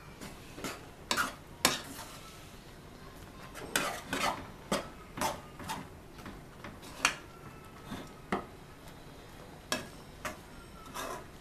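A spoon stirring and mashing thick, crumbly rice flour dough in a metal pot, knocking and scraping against the pot's sides in about a dozen irregular strikes, some much sharper than others. The rice flour is being worked into just-boiled salted water.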